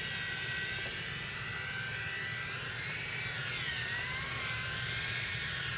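Novus CX micro RC helicopter flying, its small electric motors giving a high steady whine that sags in pitch a little past the middle and climbs back up.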